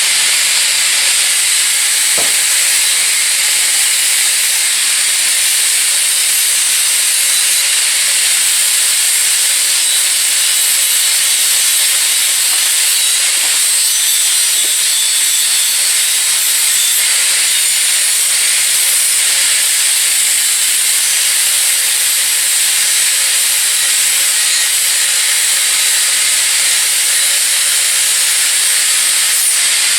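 A loud, steady hiss that runs without a break, with a faint click about two seconds in.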